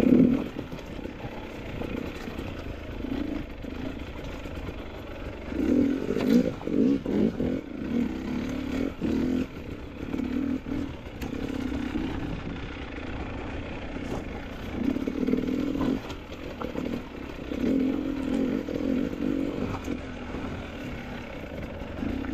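Motorcycle engine running as it is ridden over rough creek-bed ground, the throttle opened in several short bursts between steadier running, with a few knocks.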